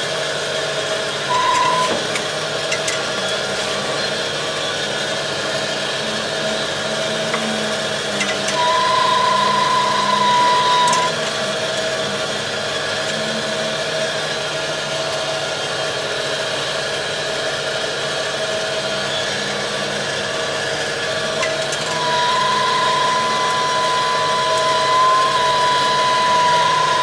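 Mantis 6010 crawler crane's diesel engine running steadily, heard from inside the cab as the crane travels on its tracks. A steady high whine joins it for a couple of seconds about a third of the way in and again through the last few seconds.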